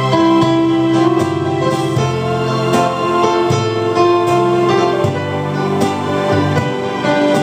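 Roland digital grand piano played with both hands: held chords over a bass line whose notes change every second or so.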